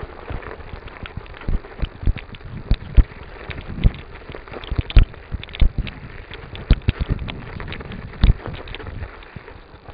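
A bicycle jolting over rough, frozen snow-covered ground: irregular sharp knocks and rattles, a few a second, over a steady rush of wind and tyre noise.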